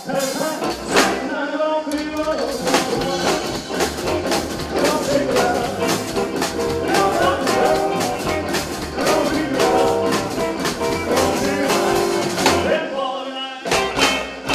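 Live rockabilly band playing an instrumental passage: slapped upright double bass, acoustic and electric guitars and drums over a steady, driving beat. Near the end the low end drops out briefly before a few accented hits.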